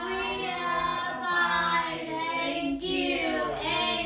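Unaccompanied singing in a high, female-range voice, a sung line with long held notes.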